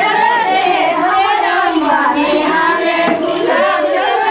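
A group of women singing together, their voices overlapping, with talk mixed in.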